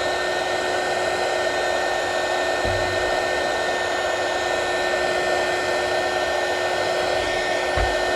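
Low-power heat gun running steadily with a constant blowing rush and a steady whine, heating adhesive-lined marine-grade heat-shrink on a crimped cable lug until the glue oozes out. Two brief low bumps come about a third of the way in and near the end.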